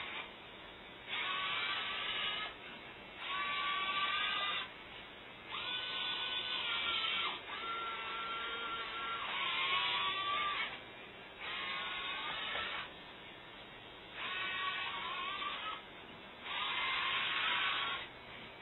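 Geared servo motors in the modules of a modular snake robot whirring in a series of bursts, each a second or two long with short pauses between, as the joints turn. A whine runs through each burst and bends in pitch as the motors start and stop.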